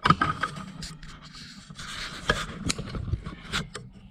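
Clatter, knocks and scraping of kitchen utensils against a metal pot, with a sharp knock just after the start from the camera being handled. A steady low hum runs underneath.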